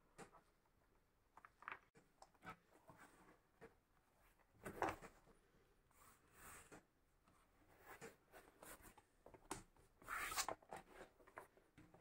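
Faint handling noises of leather panels being moved, folded and smoothed on a cutting mat: scattered soft rustles and brushes, the loudest about five seconds in and again about ten seconds in.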